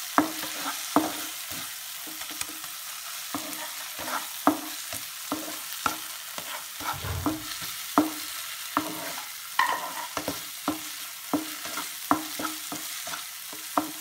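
A black slotted spatula stirring onion and tomato masala in a non-stick frying pan, knocking and scraping against the pan one to two times a second over a steady sizzle. The base is being sautéed with freshly added ground spices.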